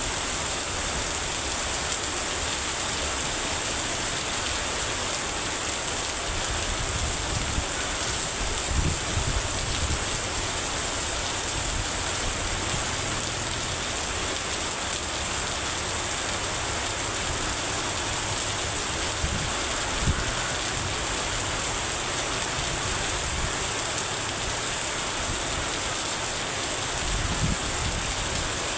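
Heavy rain falling steadily, an even hiss with no let-up, and a few low thuds now and then.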